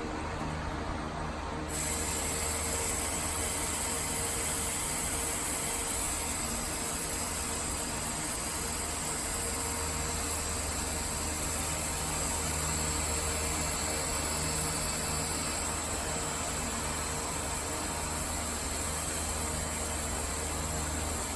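Compressed air hissing out of newly installed suspension air bags as they are let down. The hiss starts suddenly about two seconds in and runs steadily, easing a little toward the end, over a low steady hum.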